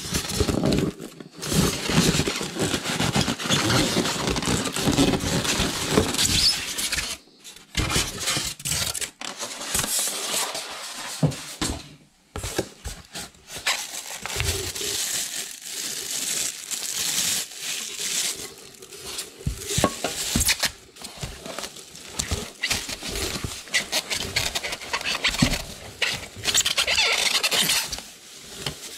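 Polystyrene foam packing squeaking and scraping against a cardboard box as it is worked loose, then plastic wrap crinkling and rustling with small knocks as wrapped tool parts are handled in their foam tray.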